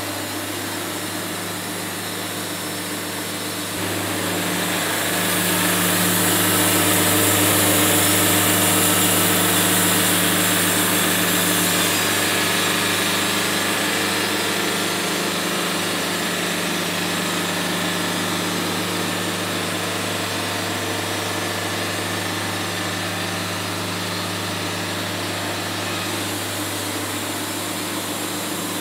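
Wood-Mizer portable band sawmill running, its engine a steady drone as the band blade saws a board off an oak cant. The sound swells about four seconds in, carries a brighter hiss for several seconds, then settles to a steady level.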